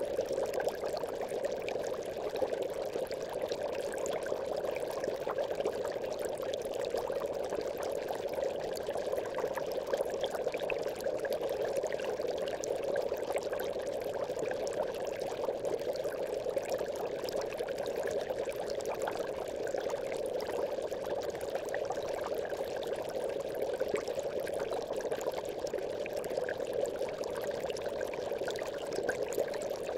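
Aquarium air bubbles: a continuous, even stream of bubbling water with many small pops.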